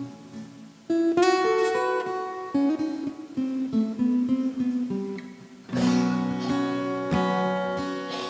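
Acoustic-electric guitar being strummed and picked, with chords struck about a second in and again near the end and left ringing, and single notes in between.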